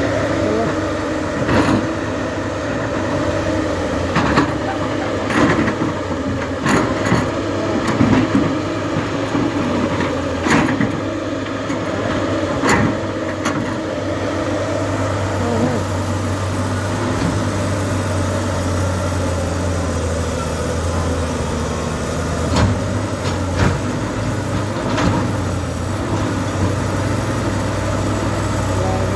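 Diesel engine of a JCB 3DX backhoe loader running steadily while working, with sharp knocks and clanks every second or two in the first half and a few more near the end.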